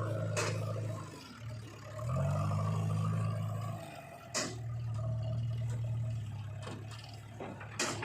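Diesel engine of heavy earth-moving machinery running, revving up about two seconds in and easing back down near four seconds. Three sharp knocks cut in, about half a second in, near four and a half seconds and near the end.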